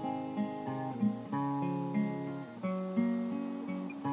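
Acoustic guitar playing a slow song intro, picked and strummed chords ringing, with a new chord or bass note about every half second to second.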